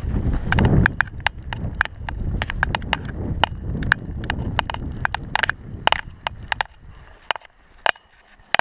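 Mountain bike rolling down a dirt-and-gravel trail: rumble of tyres and wind on the microphone, with sharp, irregular rattling clicks from the bike over the bumps. The rumble dies away near the end as the bike slows, leaving scattered clicks.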